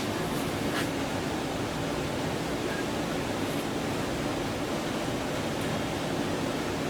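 Steady rushing background noise, with a faint click a little under a second in.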